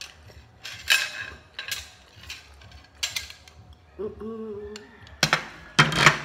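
Metal spoon and fork clinking and scraping against an emptied ceramic plate as it is lifted and handled: a string of sharp clatters, the loudest near the end.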